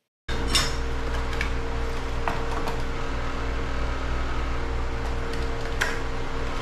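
A steady machine hum, with a few light clicks and rustles as small metal parts and their packet are handled.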